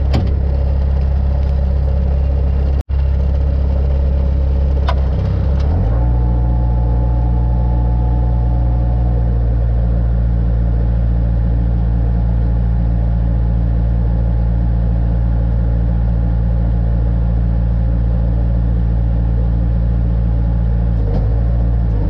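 Loader engine running steadily under the cab. About six seconds in it speeds up and then holds at the higher revs.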